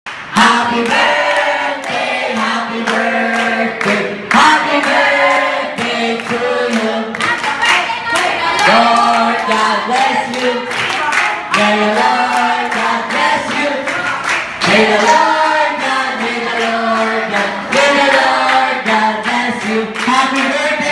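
A group of voices singing together, unaccompanied, while clapping their hands along.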